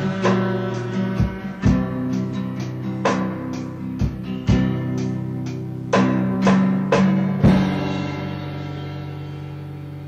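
Rock band instrumental from a 1983 cassette recording, played back from tape: guitar chords under sharp drum hits. The hits stop about seven and a half seconds in, and the last chord rings on and fades away.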